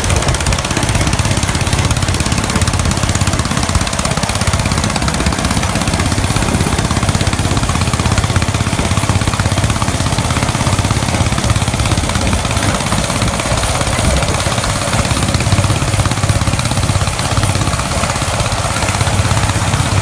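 A vintage Ferguson 35 tractor's petrol/TVO engine and the McCormick F5-112 baler's own petrol engine running steadily together while baling straw.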